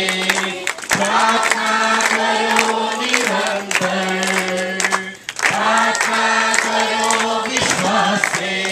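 A congregation singing a worship song together, holding long notes, over a steady beat.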